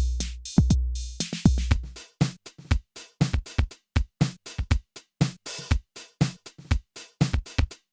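Electronic drum machine beat with kick, snare and hi-hats. For about the first two seconds the kicks are long and booming; after that the pattern turns tighter, with short kicks, snare hits and quick hi-hat ticks.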